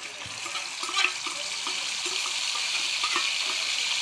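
Ginger-garlic and tomato-onion paste sizzling in hot oil in a steel kadhai, the sizzle swelling about a second in and then holding steady. Light taps and scrapes of a steel spoon on the bowl and pan run through it.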